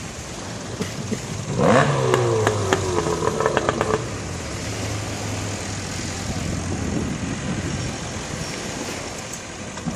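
Speedboat engine revving up sharply about a second and a half in as the boat is driven up out of the water, with a rapid clatter for a couple of seconds, then settling to a lower steady running that fades away.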